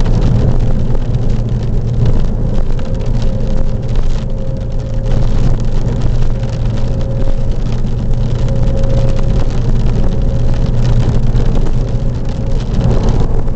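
Cabin noise of a 2001 Porsche Boxster S at highway speed: its 3.2-litre flat-six and tyres making a steady low hum, under a constant haze of rain and wind against the car.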